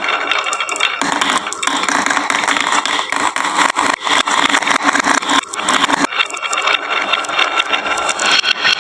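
Marbles rolling and clattering down a wooden marble run: a continuous rolling rumble with many small rapid clicks, fuller and louder from about a second in until about six seconds.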